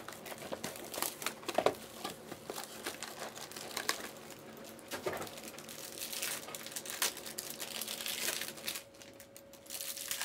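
Plastic trading-card packaging crinkling and tearing in irregular bursts as packs of basketball cards are handled and opened. It eases off near the end.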